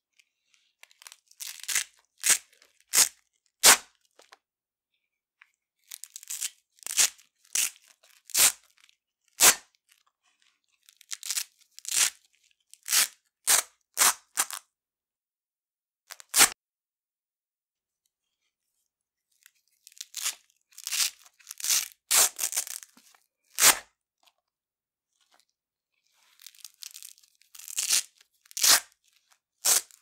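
Velcro hook pieces ripped off a Velcro-loop-covered wooden rolling pin at different speeds. The rips come in groups with pauses of a few seconds between: some are drawn-out crackly tears, others single sharp rips.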